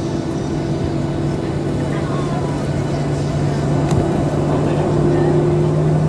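Cabin sound of a Boeing 737-800's CFM56 turbofan engines as the jet taxis onto the runway: a steady hum with two low tones over a rumble, getting gradually louder as the pitch steps up slightly near the end.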